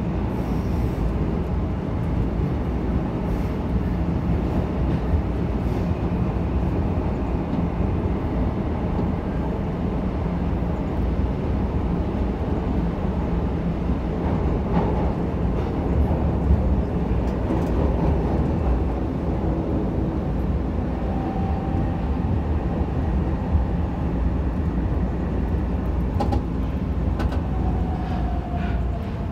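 São Paulo Metro Line 1 train heard from inside the car, running through the tunnel: a steady low rumble of wheels on rails and traction motors. A faint falling whine comes in near the end.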